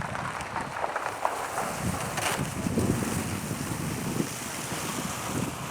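Wind buffeting the microphone in uneven gusts, with a few short rustles or knocks; the clearest comes about two seconds in.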